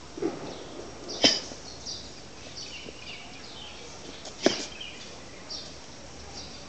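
Two sharp slaps about three seconds apart, each made by a strike or stamping step as a martial artist works through the Xing Yi Quan fire fist form, with faint high chirps in between.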